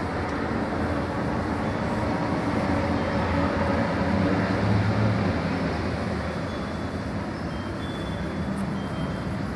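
Steady rumble of urban traffic noise.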